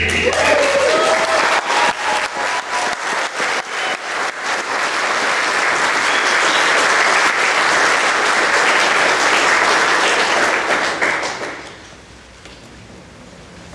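Wedding congregation applauding the couple just pronounced husband and wife: many hands clapping for about eleven seconds, then dying away near the end.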